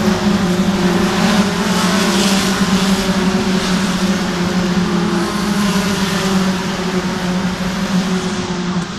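Racing car engines at high revs as a field of race cars streams past on the circuit, one after another, with swells as individual cars go by.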